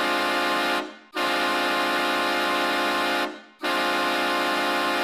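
Hockey goal horn sounding a goal in long, steady blasts. It breaks off briefly twice, about a second in and again about three and a half seconds in.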